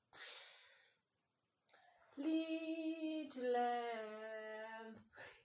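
A woman sings two long, drawn-out notes without words, the second lower than the first. Before them comes a short breathy exhale.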